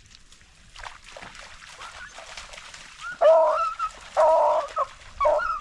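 Hunting beagles baying, the drawn-out cry hounds give while running a rabbit. Three long bays come from about three seconds in, over a faint rustling.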